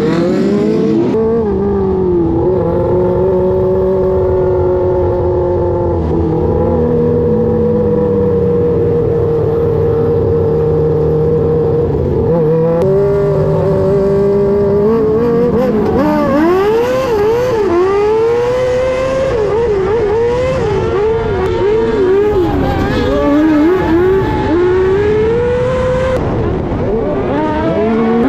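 Micro sprint cars' 600cc motorcycle engines, heard from the car's onboard camera. A car drives past at the start. Then the engine runs at a steady pitch for several seconds, and from about halfway it revs up and down repeatedly, lap after lap through the corners.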